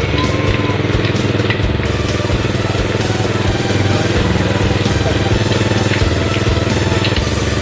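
Small engine running steadily at a constant speed, with a fast even pulse.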